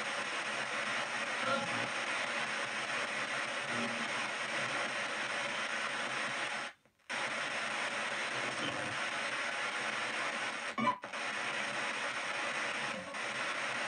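P-SB7 spirit box in reverse sweep, played through stereo speakers: a steady hiss of radio static as it scans the stations. It cuts out for a moment about seven seconds in, and there is a sharp click near eleven seconds.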